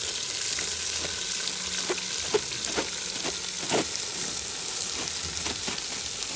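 Shredded cabbage sizzling in hot oil and browned onions as it is poured into a metal cooking pot: a steady hiss with scattered pops and crackles.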